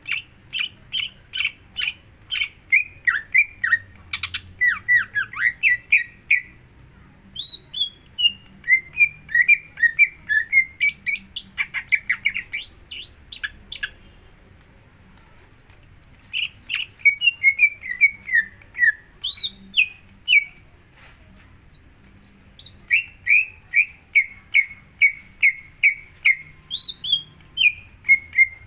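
Green leafbird (cucak ijo) song: phrases of rapid repeated chirping notes, many sliding down in pitch, broken by short pauses. It is the kind of song played as a lure to get a cucak ijo to start singing.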